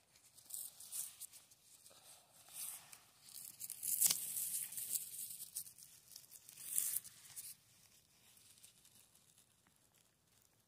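Crinkling of a plastic glove and crackling of dry pine needles and twigs as a hand searches the forest floor for mushrooms, in irregular bursts loudest about four seconds in, dying away for the last few seconds.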